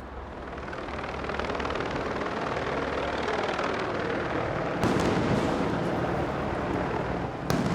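Street protest turmoil: a dense din that builds over the first few seconds, broken by two loud bangs, about five seconds in and again near the end.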